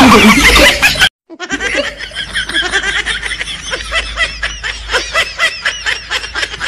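Laughter sound effect: a loud burst that cuts off about a second in, then after a short gap, rapid, high-pitched giggling that goes on in quick repeated bursts.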